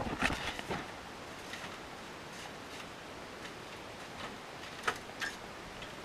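Handling and movement noises in a wooden sauna room: a cluster of soft knocks and clicks at the start, a few faint ticks, and two sharper clicks about five seconds in, over a steady faint hiss.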